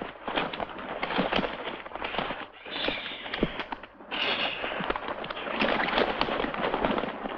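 A crowd of vultures feeding on a carcass: a dense, continuous scuffle of flapping wings, jostling and tearing at the flesh, with several harsh hissing calls.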